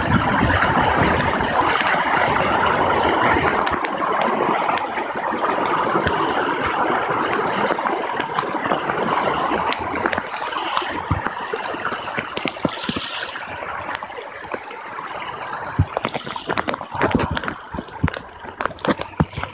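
Floodwater rushing across a paved street and spilling over the curb, a steady rushing and gurgling that slowly fades through the second half. Scattered sharp taps come in the last few seconds.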